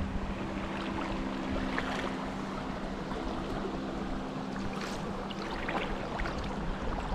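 Rain falling on the loch's surface around a kayak, a steady hiss of water, with a few short splashes from paddle strokes.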